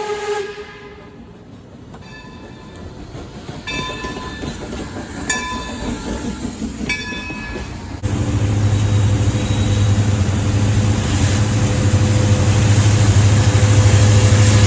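A train horn chord cuts off. Then short ringing strikes, like a locomotive bell, come about every second and a half. From about eight seconds in, a locomotive's engine runs loud and steady with a low drone as the train passes close.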